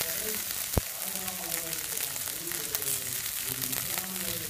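Oil sizzling steadily around kuzhi paniyaram frying in the wells of a cast-iron paniyaram pan, with one sharp click a little under a second in.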